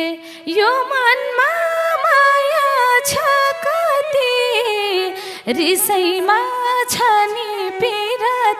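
A woman sings a Nepali dohori folk verse solo into a microphone, her voice bending between notes and holding them. The band is mostly quiet behind her apart from a few sharp taps.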